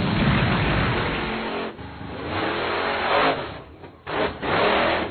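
Cartoon monster truck sound effects: a crash as the truck lands, then its engine revving in rising surges as it drives off.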